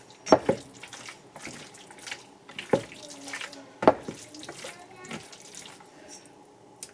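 Raw seasoned chicken wings being set one at a time into a metal strainer: a few sharp, wet clinks and knocks, the loudest about four seconds in, over a low watery background.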